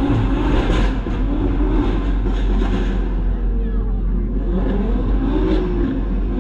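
Car engine and drivetrain heard inside the cabin while rolling slowly: a steady low rumble whose engine note rises and falls a few times.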